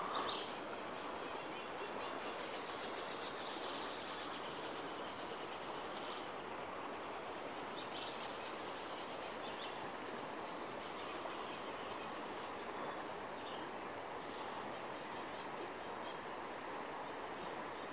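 Steady outdoor riverbank ambience with an even background hiss. About four seconds in, a rapid run of about a dozen short high-pitched calls lasts a couple of seconds, and a few faint chirps follow later.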